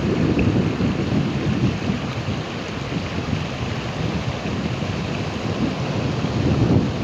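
Ocean waves surging and breaking on the shore, a continuous deep wash that swells louder about a second in and again near the end.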